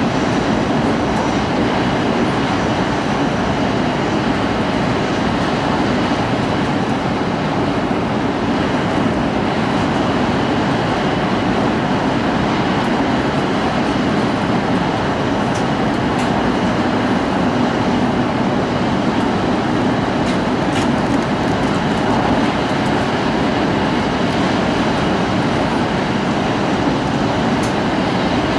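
Steady running noise of an E5 series Tohoku Shinkansen train at high speed, heard inside the passenger cabin: an even, unbroken rumble from the train rolling along the track.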